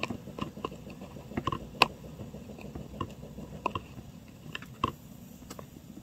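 Small tweezers tapping and clicking against a resin shaker mold and the tiny parts being placed in it: about a dozen light, irregular clicks, the sharpest near two seconds in.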